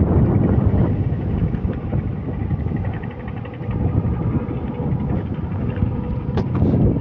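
Yamaha 300 HP outboard motor running steadily.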